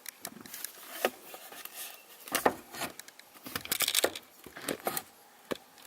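Irregular small clicks, taps and rustling of hands working a shifter linkage retaining clip, rotating it to unlock it.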